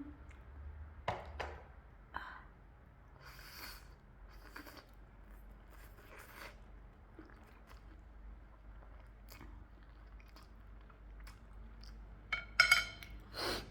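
Close-miked chewing of a mouthful of food: soft wet smacks and clicks of the mouth and teeth, with a louder cluster of mouth sounds near the end.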